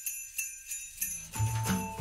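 Background music opening with sleigh bells shaken in a steady beat, about three shakes a second; a bass line and other instruments come in about one and a half seconds in.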